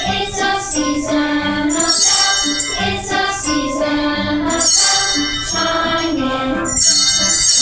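Children's choir singing a Christmas song, with jingle bells shaken in bursts every two to three seconds.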